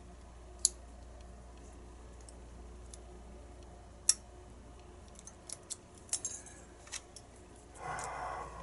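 Small metal clicks and ticks of a pin-tumbler challenge lock's parts and tools being handled during disassembly: two sharp clicks, then a cluster of lighter clicks, with a brief rustle near the end.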